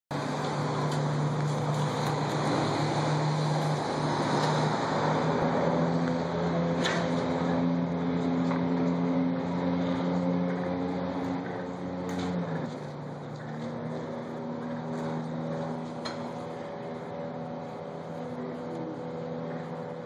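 Car engine idling close by, a steady hum that steps down in level and drops slightly in pitch about twelve seconds in.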